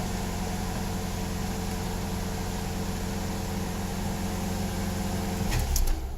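2004 Oldsmobile Alero engine idling steadily, having started and stayed running once the anti-theft system accepted the new ignition lock cylinder. The idle breaks up about five and a half seconds in as the engine is switched off.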